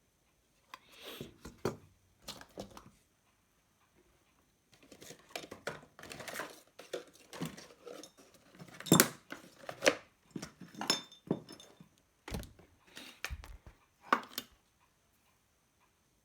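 Small metal hand tools clicking and scraping against the burnt amplifier IC on a car stereo's circuit board, in irregular bursts.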